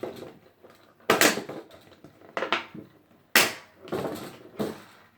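Sharp plastic clacks and crackles from handling the Beyblade top's plastic parts and packaging, about five separate snaps, the loudest about a second in and again about three and a half seconds in.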